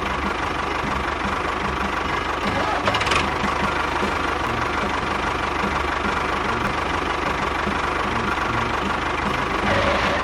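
Small engine running steadily, with a brief louder clack about three seconds in.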